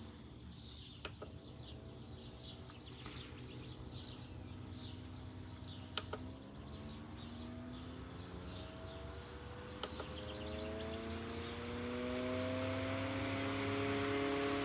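Small wall-mount fan's motor humming, with sharp clicks of the power button. After the clicks near the middle and about two-thirds through, the hum slowly climbs in pitch and gets louder as the fan steps up through its speed settings. Faint bird chirps sound in the background.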